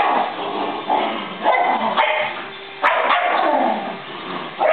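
Two Shetland sheepdogs play-fighting, barking in short, loud bursts about every half second to a second.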